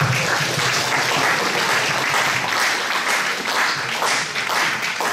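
Audience applauding: dense clapping from a roomful of seated listeners, thinning out near the end.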